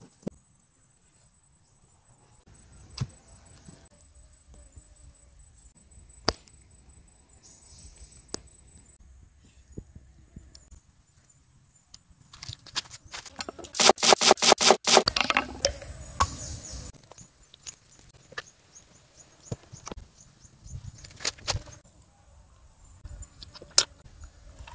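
A steady high insect whine, with scattered knocks and scrapes of outdoor cooking work. A little past halfway comes a quick run of about a dozen loud, sharp taps, followed by a couple of seconds of rough scraping noise.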